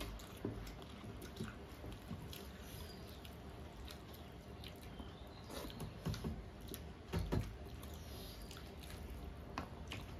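Eating by hand: fingers squishing and mixing rice and mutton curry on metal plates, with faint chewing and small wet mouth clicks. A few louder clicks come about six and seven seconds in.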